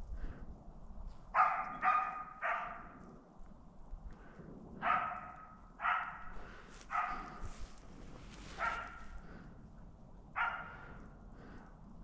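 A Wachtelhund (German spaniel) barking in the distance, eight barks in uneven groups that echo through the forest, typical of the dog giving tongue (los) on game it has found.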